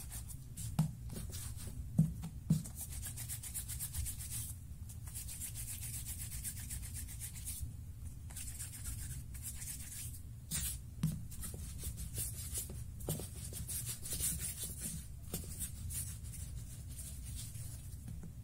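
Hands rolling and rubbing soft simit dough into ropes on a floured wooden board: a soft swishing rub that comes and goes, broken by a few light knocks, over a low steady hum.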